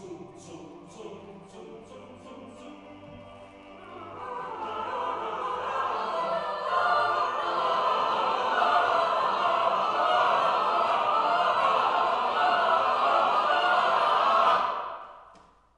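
An a cappella chamber choir singing: soft held chords swell about four seconds in to a loud sustained final chord. The chord cuts off a second or so before the end, and the hall's reverberation dies away.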